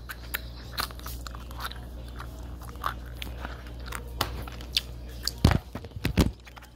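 Scattered small clicks and crackles of candy packets and plastic eggs being handled close to the phone. A few heavy bumps near the end come from the phone itself being knocked and handled.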